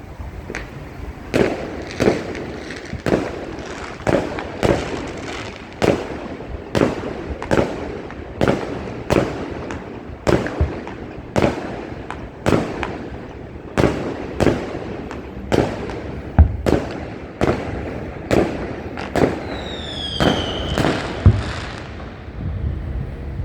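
New Year fireworks bursting in a steady barrage, about one to two bangs a second, each bang trailing off. A whistling firework falls in pitch near the end, and the loudest bangs come a little past the middle and just after the whistle.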